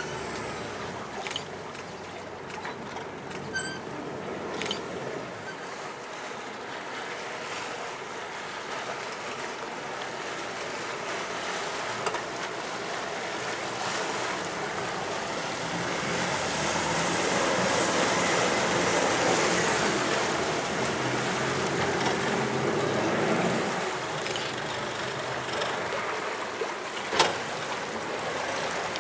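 Combo motor cruiser under way close by, its engine and the rush of its wash on the water making a steady noise that grows louder to a peak about two-thirds of the way through and then eases. A single sharp knock sounds near the end.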